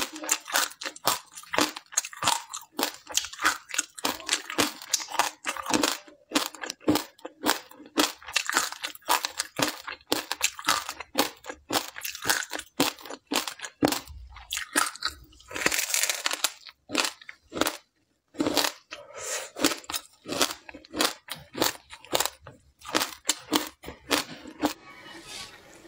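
Frozen ice coated in seeds being bitten and chewed, heard as a dense run of sharp crunches. It breaks off briefly about two-thirds through and thins near the end.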